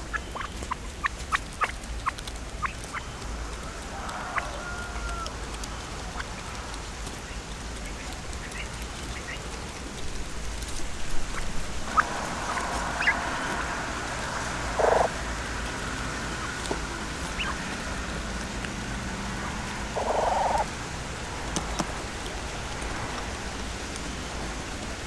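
A bird giving short calls, two louder ones about five seconds apart in the second half, among scattered faint clicks and rustles.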